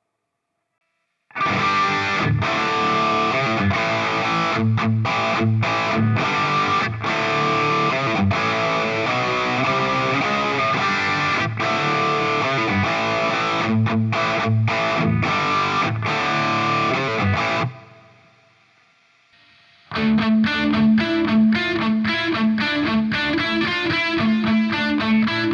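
Electric guitar played through a Playwell Tank-G multi-effects unit on a distorted preset, starting about a second in and stopping at about 18 s. After a brief pause the guitar comes back on the next preset with a more rhythmic, evenly picked part.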